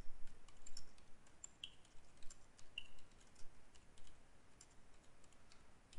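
Faint typing on a computer keyboard: irregular, spaced-out keystrokes as a short line of text is entered.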